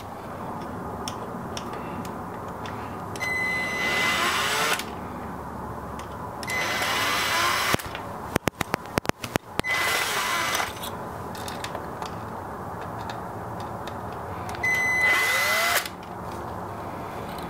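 Cordless drill-driver backing out the four Phillips head screws that hold a coffee grinder's motor to its gearbox: four short runs of the drill, each a second or so, with a whine that rises and falls in pitch.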